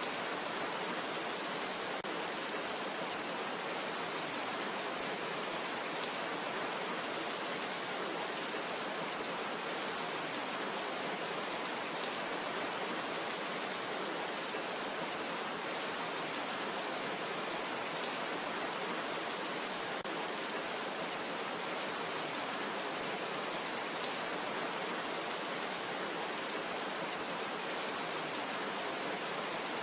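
Steady rain falling, an even hiss with a fine patter of drops that holds unchanged throughout.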